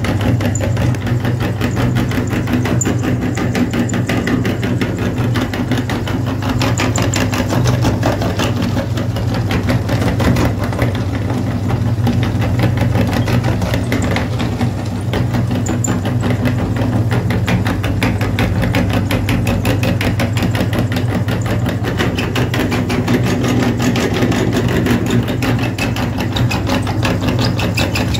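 Motor-driven meat grinder running steadily while crushing sticks of chalk: a constant low hum with a dense, rapid gritty crackle as the chalk is ground through the perforated plate.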